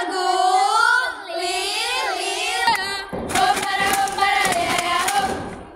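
Young scouts singing a yel-yel (scout cheer song) together in a group. A short break comes about three seconds in, followed by a denser stretch of many voices.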